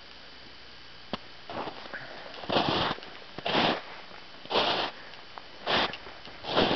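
Footsteps crunching in snow, starting about two and a half seconds in and going on at about one step a second.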